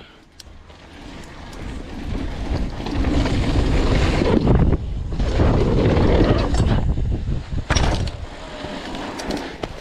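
Wind rushing over an action camera's microphone as a mountain bike drops in and picks up speed, building over the first few seconds, then dipping, with a sharp knock about eight seconds in.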